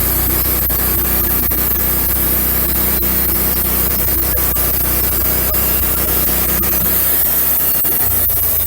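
Wood-Mizer LX150 bandsaw mill running, its engine's steady note under the hiss of the band blade sawing through an oak log. Near the end the engine note shifts.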